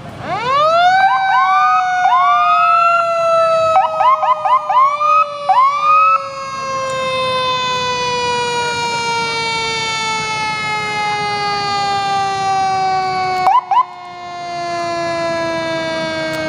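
Fire engine's mechanical siren winding up in a rising wail, given several short bursts over the first few seconds, then left to coast down in one long, slowly falling tone.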